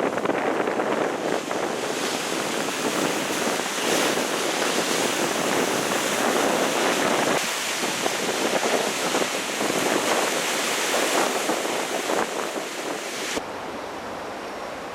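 Steady rushing noise of wind on the microphone mixed with waves. It drops abruptly to a quieter hiss near the end.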